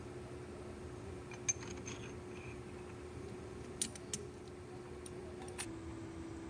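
A few sharp metallic clinks of steel tools and parts being handled at a metal lathe, two of them in quick succession midway, over a steady low hum.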